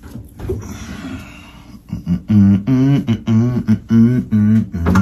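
Clothes rustling as they are handled, then a man's voice humming or vocalizing a tune in short rhythmic phrases, loud and close.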